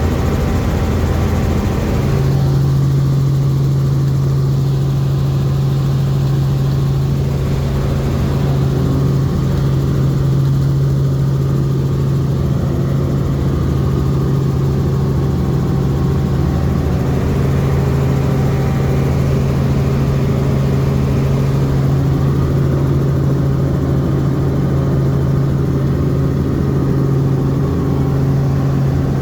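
Helicopter running steadily as heard from inside the cabin: a loud, even drone with a strong low hum that settles in about two seconds in.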